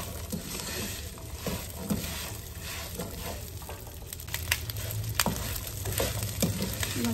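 Whole Akabare chillies sizzling in hot mustard oil with whole spices in a wok, stirred with a wooden spoon that scrapes and knocks against the pan in short clicks over a steady frying hiss.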